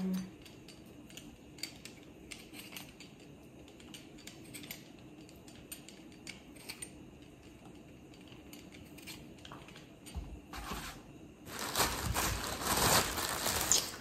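Kitchen utensils at work on potatoes: scattered light clicks and knocks, then about ten seconds in a louder rasping, scraping noise that runs through the last few seconds.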